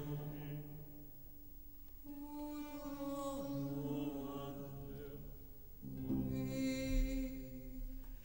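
Quiet, sparse contemporary music for choir and chamber ensemble: soft held chords in three phrases with short pauses between, a few pitches sliding downward in the middle phrase.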